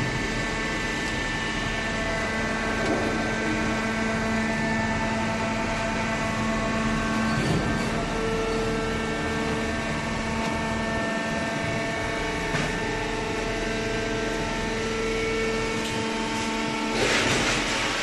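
Waste-paper baler machine running: a steady mechanical hum with several steady tones running through it, and a short burst of hissing noise about a second before the end.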